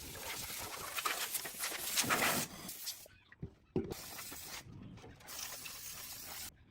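Loud hissing in three bursts, each starting and stopping abruptly, the first the longest.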